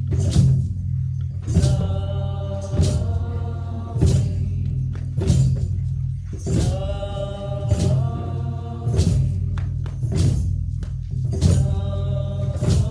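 A group of voices singing a slow chant together, each note held for about a second, over a steady low drone, with a percussion stroke roughly every second.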